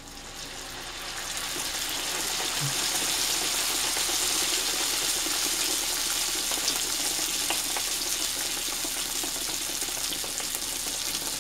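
Whole wheat dough frying in hot oil in a skillet. The sizzle builds over the first couple of seconds after the dough goes in, then runs steadily.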